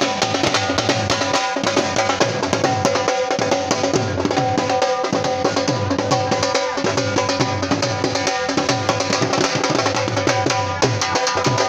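Dhol drums beaten in a fast, dense rhythm, the low strokes sliding down in pitch, with a steady held tone sounding above them.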